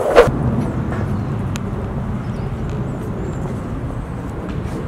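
A single sharp knock just after the start, then a steady low outdoor background rumble.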